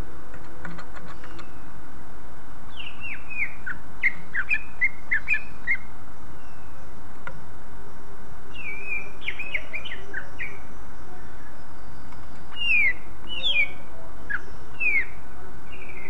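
Male green leafbird (cucak ijo) singing: three bursts of quick, sharply falling whistled notes with short pauses between them.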